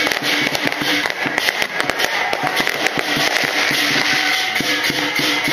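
Fireworks crackling and popping in rapid succession: dense sharp cracks, many each second, with no single big boom standing out.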